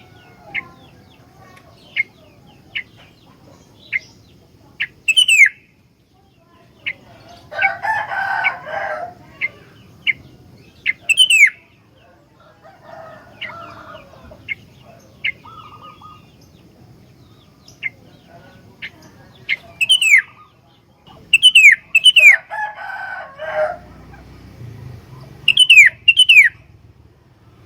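Sooty-headed bulbul calling: a string of short, sharp chirps and downward-curving whistled notes, broken by three harsher, rougher bursts of a second or so.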